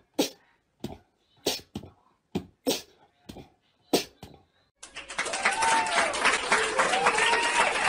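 A dog giving a string of short, separate barks, then from about five seconds in a continuous run of vocalizing with a rising and falling whine.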